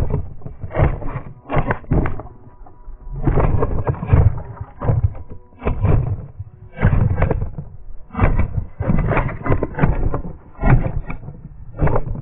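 Repeated crunching and scraping in dry leaf litter and dirt, with knocks on the rover's plastic body, coming in uneven bursts about once a second.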